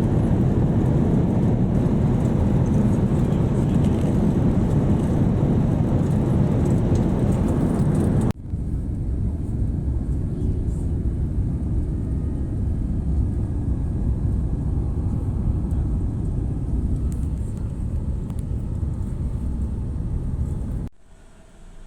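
Steady low rumble and rush of airliner engines and airflow heard inside the passenger cabin. It cuts abruptly about eight seconds in to a slightly quieter, duller stretch of the same noise, and drops away sharply near the end.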